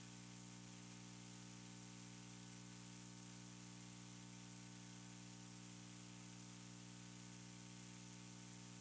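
Near silence: a faint, steady electrical hum with hiss, the recording's noise floor.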